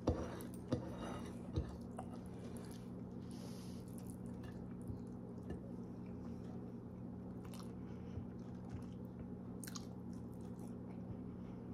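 Quiet chewing of rice and rotisserie chicken eaten by hand, with a few sharp mouth clicks in the first two seconds, over a steady low hum.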